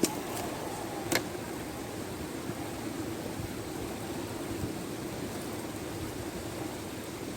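Steady rushing noise of a river in flood, with a low hum under it and two sharp clicks, one at the start and one about a second in.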